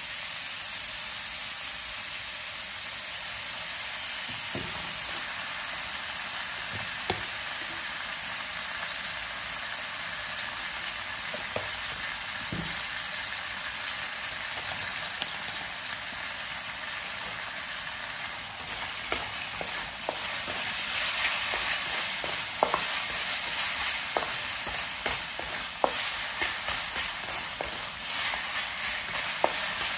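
Minced pork and garlic sizzling steadily in a wok. A wooden spatula knocks against the pan a few times, then from about two-thirds of the way through it stirs and scrapes the meat with frequent clicks, and the sizzle grows louder.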